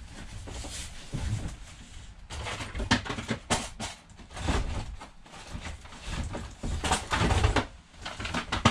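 Boxed retail items and packaging being handled and sorted: irregular rustling with scattered knocks and clicks as boxes are picked up and set down.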